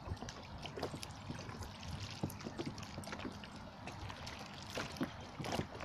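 Choppy lake water lapping at the shore, a steady wash broken by small irregular slaps and trickles.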